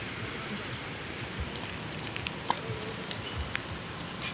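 Steady high-pitched drone of insects, with a few faint clicks and one short sharp tap about two and a half seconds in.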